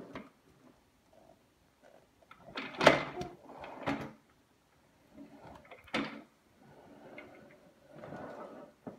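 Wheeled office chair pushed across a hardwood floor, knocking several times against the door and wall; the loudest knock comes about three seconds in, with a sharp click near six seconds.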